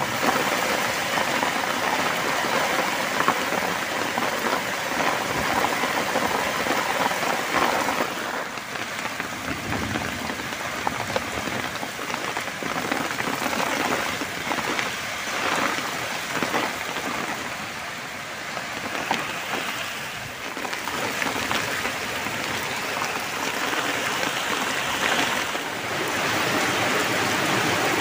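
Heavy rain falling steadily on wet muddy ground and foliage.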